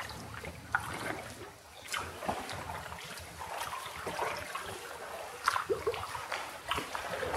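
Water splashing and trickling around a canoe as it is paddled, with scattered sharp drips and knocks.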